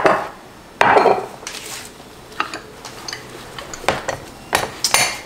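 A spoon scraping against a ceramic bowl twice while pico de gallo is scooped out, then several short clicks and knocks as kitchen utensils are handled and set down.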